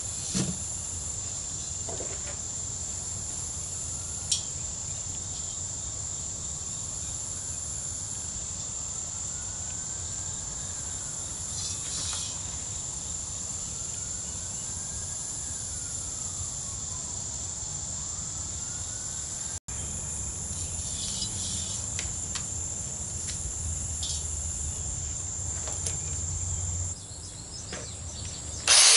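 Insects trilling steadily in a continuous high buzz over a low background hum, with a few light knocks of handling the steel drum. Just before the end a loud angle grinder starts up.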